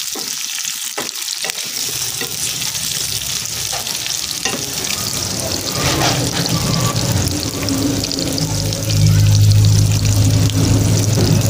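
Chillies, tomato, shallots and garlic sizzling in hot oil in a wok, with a spatula scraping and stirring in the first couple of seconds. A low steady hum joins after about two seconds and grows louder near the end.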